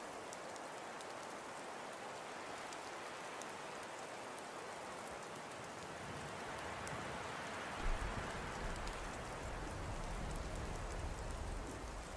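Steady rain hiss with scattered small drop ticks; a low rumble joins about eight seconds in.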